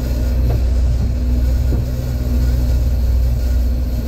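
A boat's engine running steadily under way, a constant low drone with a steady hum, mixed with the rush of water and wind.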